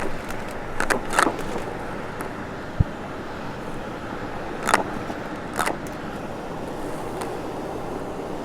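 Vacuum cleaner running steadily, with a few brief scratchy bursts over the motor noise and one low thump about three seconds in.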